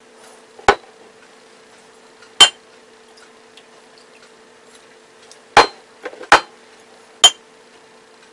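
About five sharp clicks and knocks of glass bottles and a plastic flip-top cap being handled and set down on a counter beside a glass measuring cup, over a steady faint hum.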